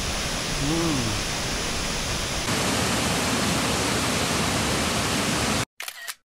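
Wachirathan Waterfall's steady rush of falling water, a dense even noise that gets louder about two and a half seconds in and cuts off abruptly near the end.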